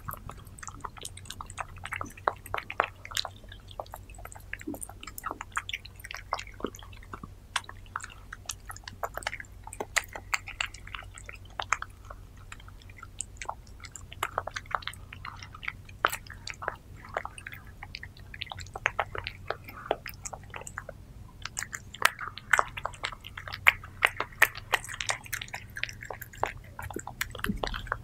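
Orange tabby cat eating soft wet food close to the microphone: a steady, irregular run of small wet chewing clicks, licks and smacks, coming thicker near the end.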